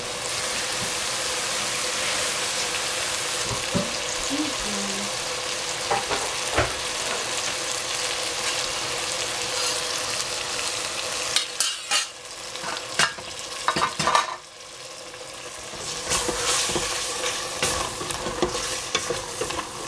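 Food stir-frying in a hot pan with a little water just added: a steady sizzle while a spatula stirs and scrapes, with a few sharp knocks. About two-thirds through the sizzle drops off for a couple of seconds, then picks up again.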